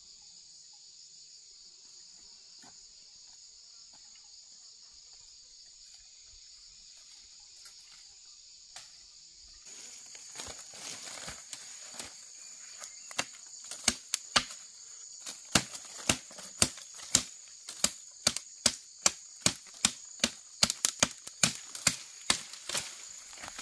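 Crickets or similar insects drone steadily in a high band. About ten seconds in, a run of sharp, repeated strikes begins at roughly two a second, growing louder and more regular.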